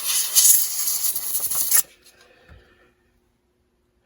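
A loud, harsh hiss that cuts off suddenly just under two seconds in, followed by a faint bump and then near silence.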